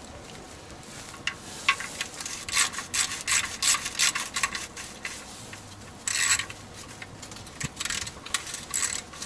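Ratchet wrench worked in short rasping strokes, tightening the engine's oil drain plug: a dense run of strokes a few seconds in, a short one a little after the middle, and more near the end.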